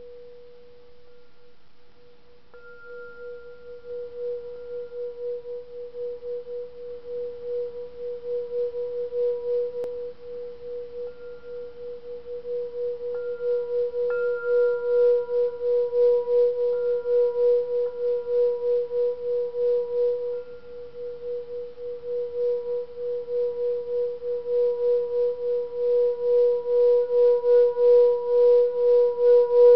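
Metal singing bowl rubbed around its rim with a mallet, sustaining one steady, wavering tone with fainter higher overtones. The tone swells louder as the rubbing goes on, eases about twenty seconds in, then builds up again.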